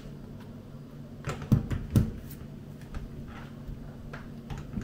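A few light knocks and clicks as a fridge freezer's door is fitted back onto its bottom hinge pin, the sharpest two near the middle, over a steady low hum.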